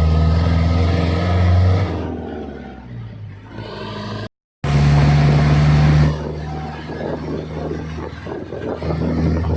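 Small engine of an alkon water pump running hard with a steady drone, easing off about two seconds in. It cuts out for a split second near the middle, then runs loud again and eases off once more about six seconds in, picking up again near the end.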